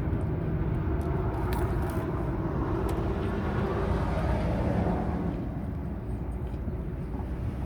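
Steady low vehicle rumble that swells for a few seconds midway, then eases off, with a few faint clicks.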